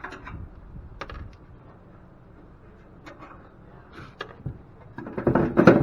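Scattered knocks and clicks of metal parts and tools being handled while machinery is taken apart, with a louder burst of clattering near the end.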